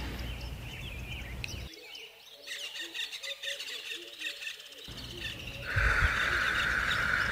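Forest ambience of birds chirping and calling. A steady hiss comes in about six seconds in and is the loudest sound.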